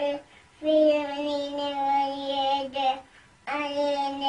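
A young child's voice chanting a prayer in long, drawn-out, sing-song notes. The voice comes in two phrases, with a short pause just after the start and another about three seconds in.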